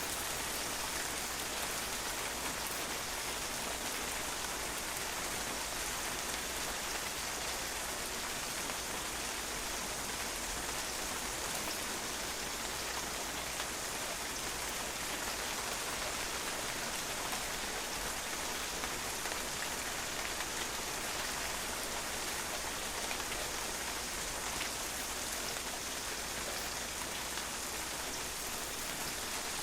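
Steady rain falling, drops pattering on a patio surface in an even hiss with faint scattered drop ticks.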